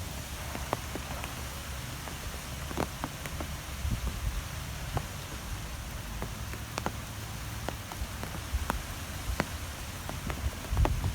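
Wind ambience: a steady hiss over a fluctuating low rumble, with sparse, irregular sharp ticks and taps scattered through it.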